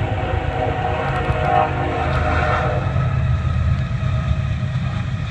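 Diesel freight locomotive horn sounding a chord for a grade crossing, fading about three seconds in, over a steady low rumble from the passing locomotives.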